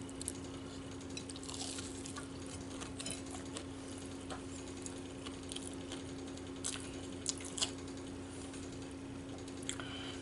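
Faint scattered clicks and clinks from eating, such as food handled and chewed, over a steady low hum.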